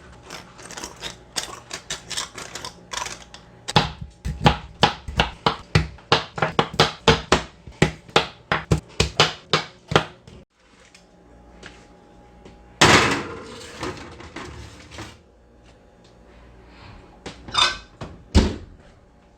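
Salt and pepper being put on a raw striped bass fillet: a long run of quick sharp taps, about three a second, that stops abruptly about ten seconds in. A short burst of noise follows a few seconds later, then two knocks near the end.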